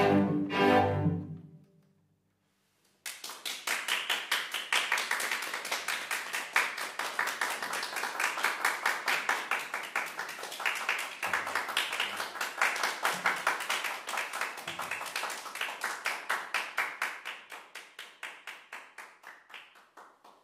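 A string quintet of violins, viola, cello and double bass sounds its final chords, which stop about two seconds in. After a moment of silence an audience applauds, the claps coming in a regular pulse, and the applause dies away near the end.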